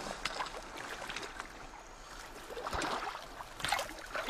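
Water splashing and trickling in irregular bursts, louder in the second half.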